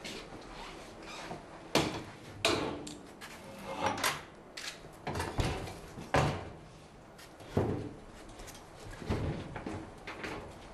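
Heavy metal hatch door and its lever handle clunking as they are worked, with about seven separate knocks at uneven intervals.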